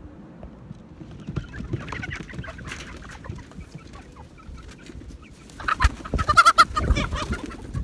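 Chickens clucking as they come out of the coop, with a louder burst of squawking and wing-flapping about six seconds in.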